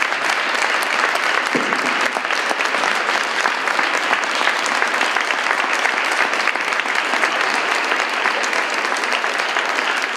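Audience applauding steadily, a dense, even clapping of many hands at the end of a talk.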